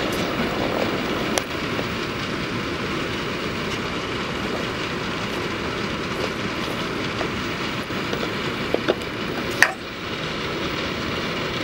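Freight train's diesel-electric locomotives (CN ES44DC, BC Rail C40-8M, IC SD70) passing at close range: a steady, loud rumble of engines and steel wheels on the rail, with freight cars rolling by near the end. A few sharp clicks from the wheels, and one short squeak about ten seconds in.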